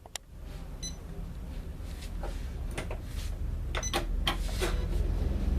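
Irregular clicks and one short beep, under a second in, as a computerized embroidery machine is handled and its controls are pressed. A low steady hum runs underneath.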